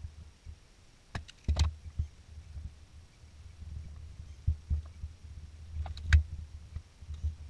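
Hands working on an ATV's wiring harness: a few sharp clicks and small knocks of wires and plastic connectors being handled, a cluster about a second and a half in and a louder one about six seconds in, over a low uneven rumble.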